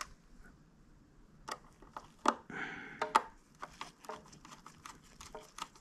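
Scattered light clicks and taps of a hand screwdriver and a small screw against the plastic housing as the screw is lined up with its hole and started, with a brief scrape partway through.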